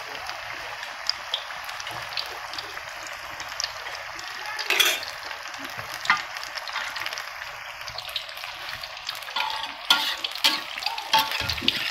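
Battered cassava strips deep-frying in a wok of hot oil: a steady crackling sizzle. A spatula stirs and knocks against the wok now and then, loudest about five seconds in.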